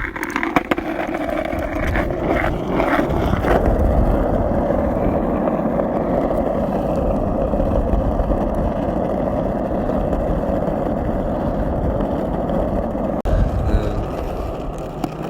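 Skateboard wheels rolling steadily down an asphalt road, a constant rolling rumble, with a few short clicks near the start and a brief knock about 13 seconds in.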